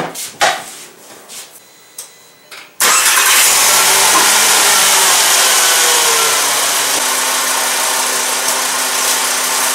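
A few light knocks, then about three seconds in the MK5 Volkswagen Jetta's 2.5-litre five-cylinder engine starts right up and settles into a steady idle. This is the first start after the throttle body replacement.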